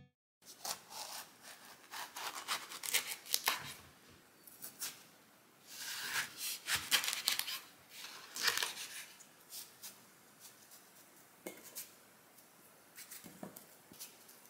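Ceramic knife cutting through cantaloupe on a wooden board, slicing the flesh away from the rind: irregular crisp cutting and scraping sounds in short runs with pauses between.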